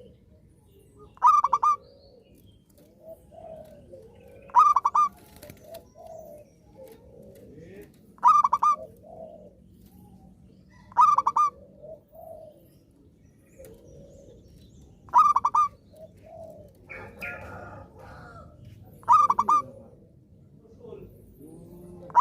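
Zebra dove (perkutut) singing its cooing phrase six times, about every three to four seconds, each a short run of rapid pulsed coos. Softer, lower bird calls come in between.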